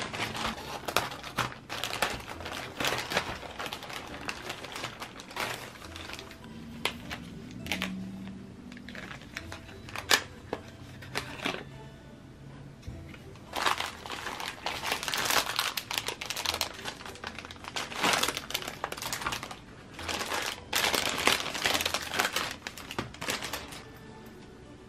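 Plastic packaging crinkling and rustling in bursts as a plastic mailer and zip-lock bags are handled and opened, with a few sharp clicks in a quieter stretch in the middle.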